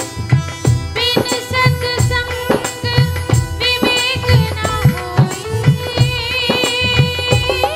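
Live Hindi devotional song: a woman singing into a microphone over a steady drum beat, with a saxophone playing the melody.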